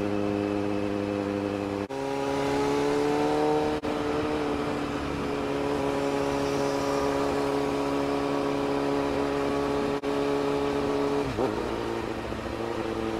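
Kawasaki Z900's inline-four engine and exhaust running under way on the highway, with a steady rush of wind. There are short breaks in the engine note about two and four seconds in, with the note climbing between them, another break near ten seconds, and a brief wobble in pitch shortly after.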